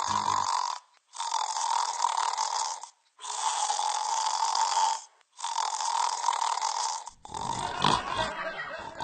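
A person snoring: a run of loud, rasping snores of about two seconds each with short breaks between. Over the last two seconds the sound changes to a rougher, lower noise.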